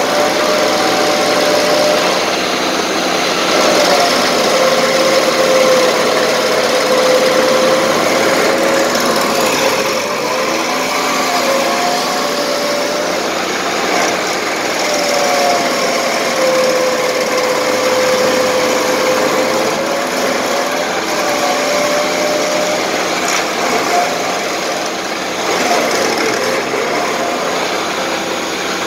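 Vermeer stump grinder running hard with its cutter wheel grinding into a stump. The engine note sags and recovers several times as the wheel bites into the wood under load, over a continuous chipping roar.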